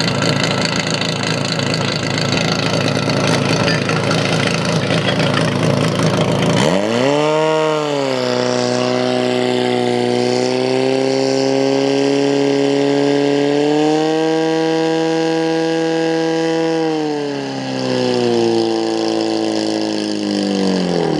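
Portable fire pump engine running hard during a firefighting-competition attack. About six and a half seconds in, the rough noise gives way to a clear engine note that dips and then holds steady at high revs. It rises slightly around the middle, then falls in pitch near the end as the engine is throttled back.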